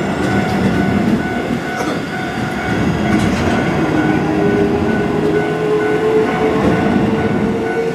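Keihan 8000 series train running past a level crossing: a loud, steady rolling rumble of wheels on rail, with a motor whine that rises slowly in pitch in the second half. Steady electronic tones of the crossing alarm bell ring over it.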